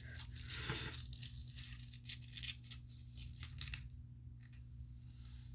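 Small plastic pieces and packaging being handled: a run of light clicks, rattles and crinkles that thins out after about four seconds.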